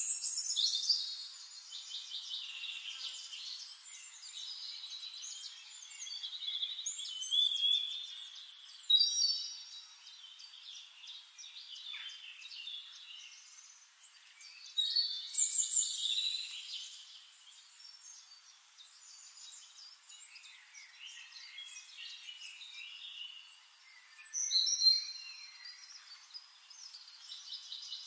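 Several songbirds singing and chirping over one another, high, quick trills and whistled phrases with louder bursts every few seconds.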